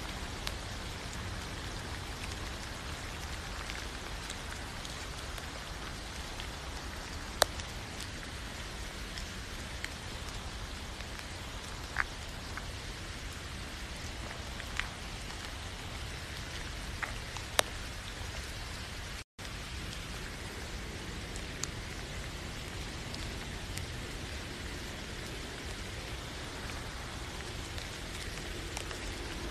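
Steady rain falling, an even hiss with a few sharper single drop hits standing out now and then. The sound cuts out for an instant about two-thirds of the way through.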